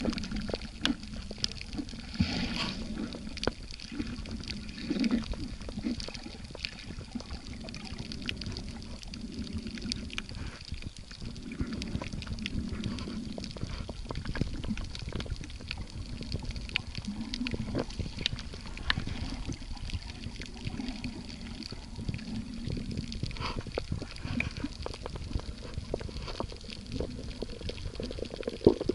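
Water heard from a camera held underwater: an irregular muffled gurgling and sloshing, with many scattered sharp clicks and crackles.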